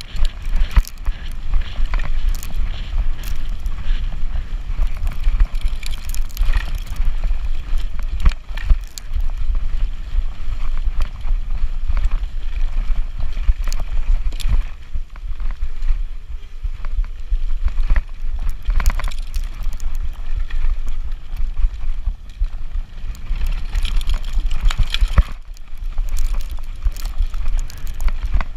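Wind buffeting the microphone as an electric mountain bike rides fast over a rough dirt trail, with frequent short knocks and rattles from the bike jolting over bumps.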